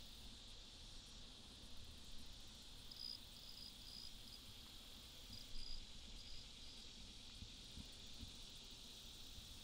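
Faint outdoor insect chorus, a steady high-pitched shrilling of crickets, with a few short high chirps about three seconds and five and a half seconds in.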